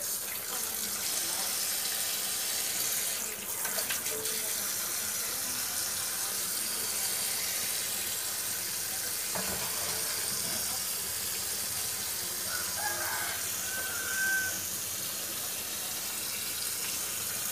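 Kitchen tap running in a steady stream onto fish in a plastic basket in a stainless steel sink, water splashing as the fish are rinsed.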